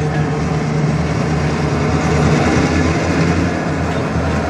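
Freight train of tank cars rolling past: a steady rumble of steel wheels on the rails, with a low, even hum underneath.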